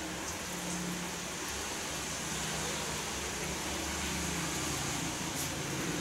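Steady rain hiss with a faint low hum underneath, getting slightly louder near the end.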